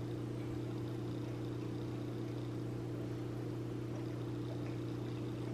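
Steady low hum of room tone, even throughout, with no distinct event.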